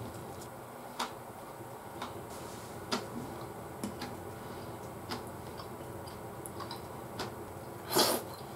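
Spoon lightly clicking against a plate of curry rice, about once a second, then a short, loud slurp about eight seconds in as a spoonful reaches the mouth.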